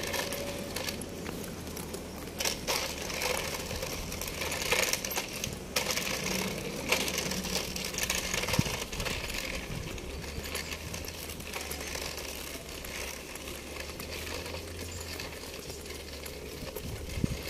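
Footsteps and rustling, clicking handling noise from someone walking with a handheld phone, over a low steady hum of street background.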